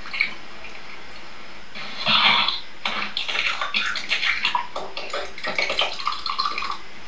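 Eggs cracked into a glass measuring jug and beaten, heard through a television's speaker: a short burst about two seconds in, then a quick, irregular clatter against the glass until near the end.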